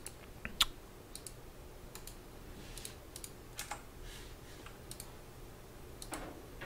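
Faint, irregular clicks from a computer mouse and keyboard, a dozen or so spread across several seconds.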